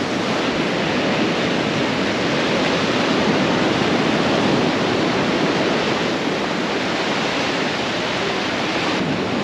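Steady rushing noise of ocean surf breaking on the beach.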